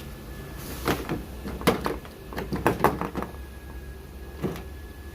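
Sharp clicks and knocks of a Nissan Sentra's exterior front door handle being worked loose and pulled out of the door, its retaining clips squeezed in: one about a second in, a quick run of them over the next two seconds, and a last one near the end.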